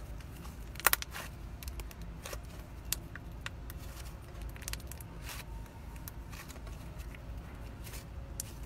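Thick slime being stretched, folded and squeezed by hand, with irregular sticky clicks and crackles. The loudest pop comes about a second in.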